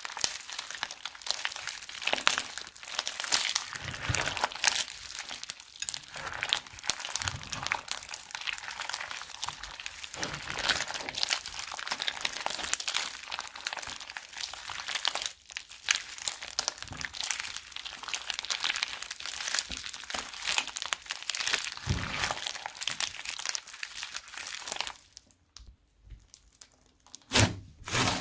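Slime being squeezed and worked in a plastic bag: dense crackling of many small clicks, stopping for about two seconds near the end before a few louder squishes.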